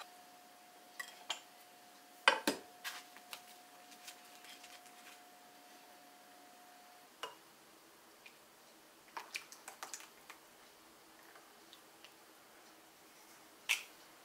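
Kitchenware being handled: a small saucepan and ceramic dishes clinking and clattering, with a sharp clank about two seconds in, lighter taps scattered through, and a clink near the end. A faint steady hum runs under the first half and cuts off about seven seconds in.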